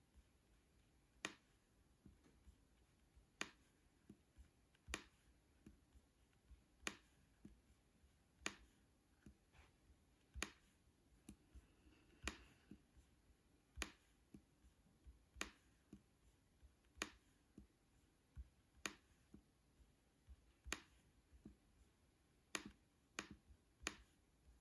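Sharp single clicks from a MacBook Air as the flashcard slides are stepped through, about one every one and a half to two seconds and a few in quicker succession near the end, over faint room tone.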